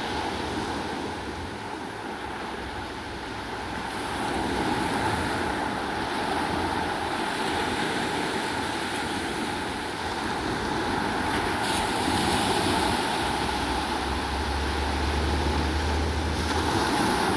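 Sea surf at high tide: waves washing in as a continuous rushing noise that swells and eases. A low rumble joins for a couple of seconds near the end.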